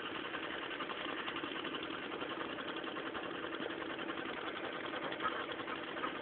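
A small motor running steadily with a fast, even rattle.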